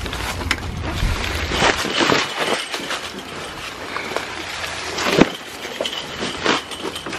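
Dry leaves crunching and rustling underfoot on concrete, with scattered clicks and a sharp knock about five seconds in.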